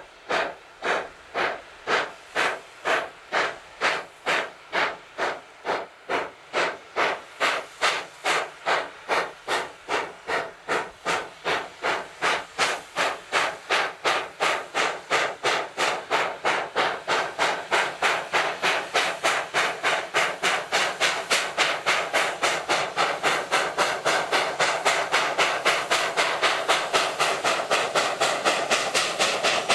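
Class 25NC two-cylinder steam locomotive working hard under load: a steady beat of exhaust chuffs that picks up from about two to about four a second. The chuffs grow louder and run together as it draws near.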